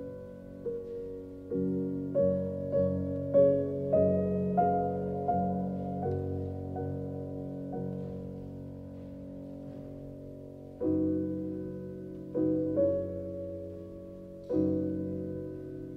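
Slow, quiet piano music: soft chords struck one after another and left to ring, with one long chord dying away in the middle before the playing picks up again.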